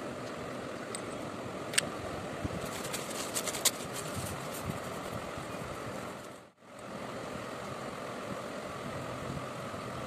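Steady background noise, with a few sharp clicks about two seconds in and again around three to four seconds in. The sound cuts out briefly about six and a half seconds in, then returns at the same level.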